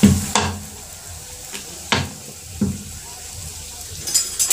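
Luchi deep-frying in hot oil in an iron kadai, sizzling. There are four sharp knocks with a short ring in the first three seconds, and loud crackling near the end as the luchi puffs up.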